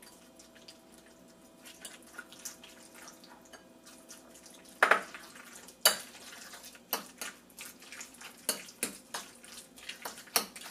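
A utensil mixing a wet ground-chicken, egg and onion meatball mixture in a bowl: soft wet stirring, then from about five seconds in sharp, irregular clicks of the utensil knocking against the bowl.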